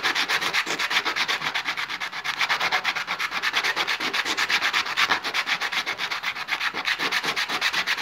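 A rough stone rubbed by hand back and forth on wet sandpaper in quick, regular strokes, grinding off a white slurry of stone dust.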